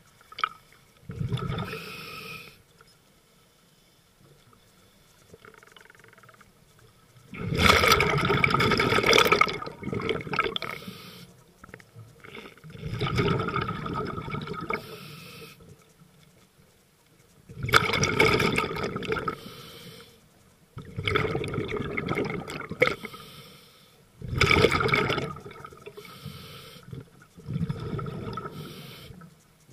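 Scuba regulator exhaust bubbles from a diver breathing underwater: a rush of bubbles with each exhalation, about every three to five seconds, with quiet gaps for inhaling between.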